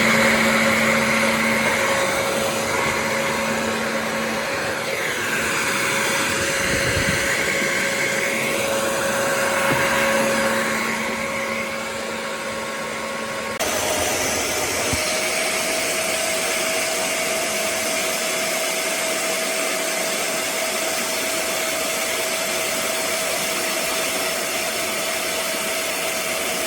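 BISSELL Little Green portable carpet and upholstery cleaner running: a steady vacuum-motor whine with slowly wavering hiss on top. About halfway through, the sound changes abruptly and the motor tone steps up in pitch.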